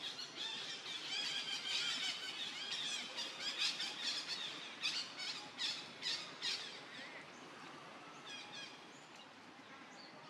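A young macaque squealing: a rapid run of short, high-pitched squeals that thins out about seven seconds in.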